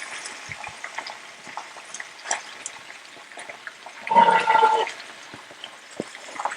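Chicken legs in thick, oily gravy sizzling and crackling softly on a tawa over low heat, with a brief pitched squeak or vocal sound about four seconds in.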